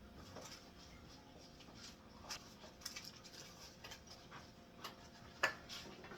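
Faint, scattered light clicks and taps of food being handled in a kitchen, with one sharper tap about five and a half seconds in.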